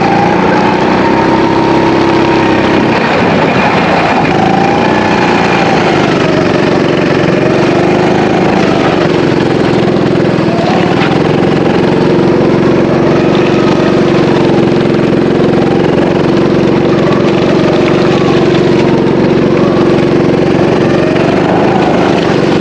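A motor vehicle's engine running steadily, its pitch drifting gently up and down as the revs vary.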